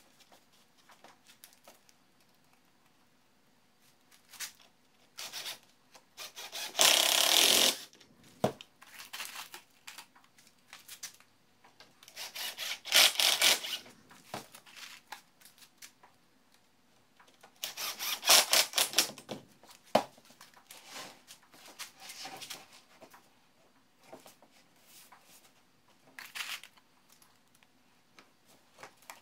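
DeWalt cordless impact driver driving 1¼-inch coarse-thread pocket screws into pine, three bursts of about a second each, with a shorter one near the end. Between them, small clicks and rubbing as screws and boards are handled.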